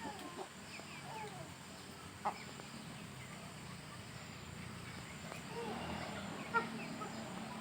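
Chickens clucking softly: a handful of short, scattered calls over a low steady background.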